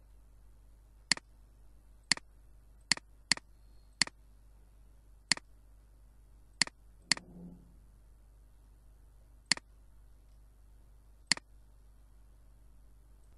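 Computer mouse button clicking: about ten sharp single clicks at irregular intervals, some close together, over a faint steady low hum. A brief low sound follows one click a little past the middle.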